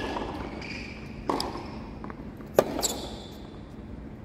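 Tennis rally on a hard court: sharp pops of the ball being struck by racquets and bouncing, three about 1.3 seconds apart, the last the loudest, each echoing around the empty stadium.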